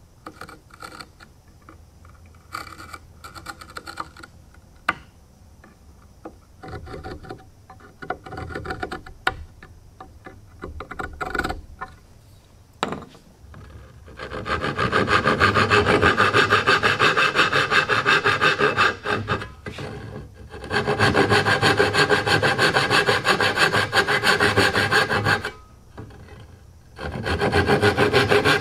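Faint scratching and light taps of lines being marked out on wood. About halfway through, a fine-toothed hand saw starts cutting into a wooden tenon to shape a dovetail, in three runs of quick back-and-forth strokes with brief pauses between.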